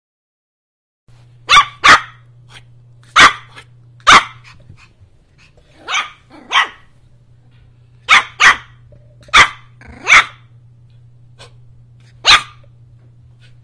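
A puppy barking in short, sharp yaps, about eleven barks often coming in quick pairs, over a faint steady low hum.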